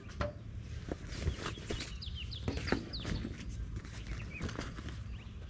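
Small birds chirping in short repeated calls, with a few sharp knocks and rustles from the canvas soft top of a Mahindra Thar being pulled and fitted, over a low steady rumble.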